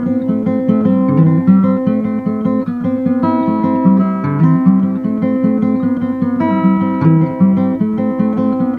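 Background music: acoustic guitar playing a plucked and strummed tune with a steady rhythm.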